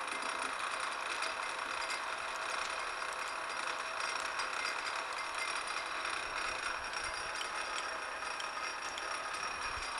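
Metal lathe running steadily with its chuck spinning, while a facing tool takes a light cut to knock a burr off the end of a small threaded workpiece.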